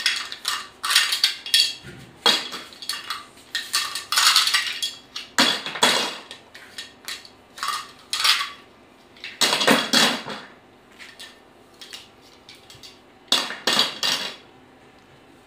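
Hard plastic toy pieces clattering and clinking as they are gathered up off the floor and dropped into a plastic storage bin, in irregular clusters of knocks with short pauses between them.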